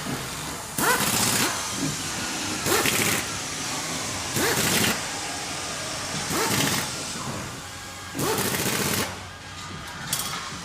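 Factory machinery running with a repeating cycle: a loud hissing burst roughly every two seconds, about six in all, each starting with a short rising tone, over a steady mechanical background.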